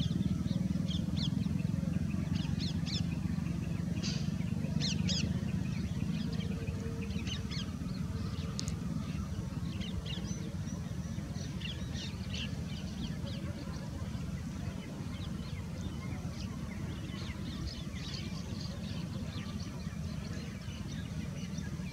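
Wild birds calling: many short, high chirps and calls scattered throughout, over a steady low rumble.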